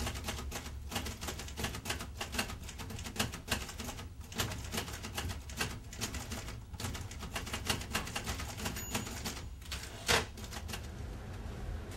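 Typewriter keys clacking in quick, irregular runs of typing, which stop near the end. There is one louder knock about ten seconds in.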